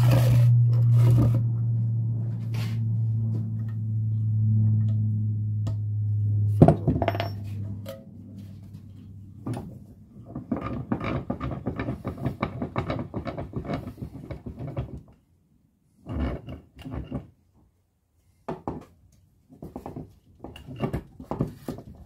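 A few sharp hammer taps on the metal tabs of an ABS pump motor housing over a steady low hum that fades out after about eight seconds. Then a run of quick metallic clinks and clatter as the unit is set in a bench vise, followed after a short pause by scattered clinks.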